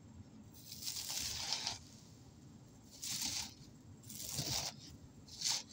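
Brittle carbonized eggshell flakes crunching and crackling as fingers press them down in a plastic tub. The sound comes in four bursts; the first is longest at about a second, and the last is the shortest, near the end.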